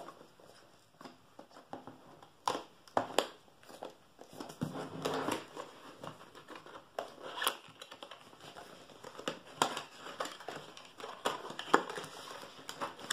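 Cardboard retail box being opened by hand: fingernails scratching at the seal sticker, card rustling and crinkling, and scattered sharp clicks and taps as the end flap is pried open.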